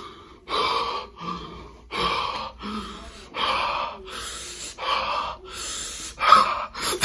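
A man making a string of about eight short, breathy gasps and huffs through bared teeth, about one a second.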